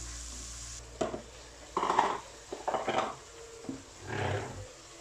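A spatula scraping and stirring sliced mushrooms around a nonstick pot, in about five short strokes roughly a second apart.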